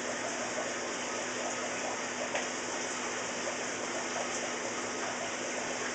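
Water pouring steadily from two hoses into a partly filled aquarium tank, a constant splashing rush.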